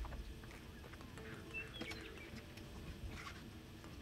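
Low rumble of wind on the microphone, with a few short, faint bird chirps about a second and a half to two seconds in and scattered light knocks.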